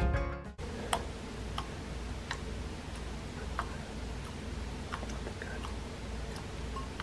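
Rubbery blue flubber slime poked and pressed by fingers in a glass bowl, giving faint, irregular sticky clicks over a low steady hum.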